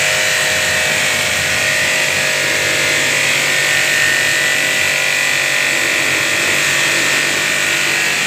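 Pressure washer running steadily: the pump hums under the hiss of the high-pressure water jet spraying onto a motorcycle's rear mudguard.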